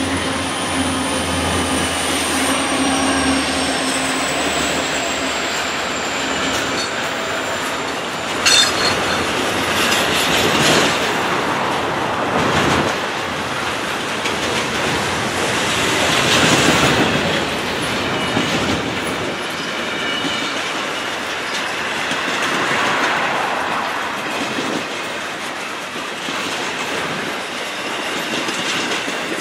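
Double-stack intermodal freight train rolling past with a steady rumble and clatter of steel wheels on the rail. A high wheel squeal slides slowly lower over the first several seconds. The hum of the trailing Union Pacific SD70M diesel locomotives fades as they pass at the start, and there is one sharp clank about eight seconds in.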